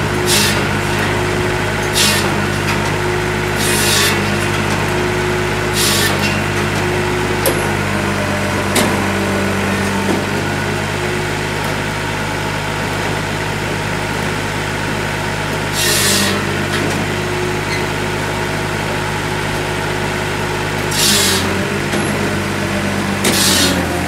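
Massey Ferguson 1020 tractor's diesel engine running steadily under PTO load, driving a Hakki Pilke OH60 firewood processor. Short bursts of harsh noise come from the processor every two seconds or so at first, then a few more near the end.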